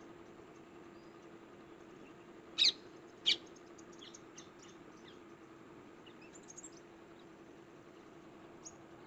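Two loud, shrill parakeet calls under a second apart, followed by a scatter of faint chirps, over a low steady hum.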